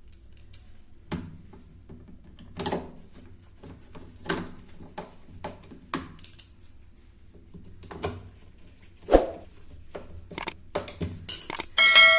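Hands working on a top-load washing machine during a shift actuator replacement, making a series of separate knocks and clicks as parts are handled and fitted. Near the end a loud electronic chime sounds.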